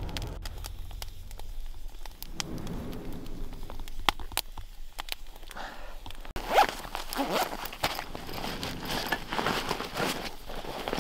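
Campfire crackling with sparse sharp pops. About six seconds in it gives way to steady rustling of clothing and crunching in snow as a person moves about on the ground.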